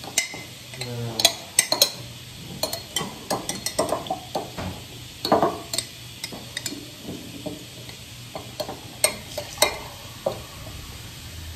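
A metal spoon clinking and scraping against a glass jar, a run of irregular sharp clinks while food is spooned out of it.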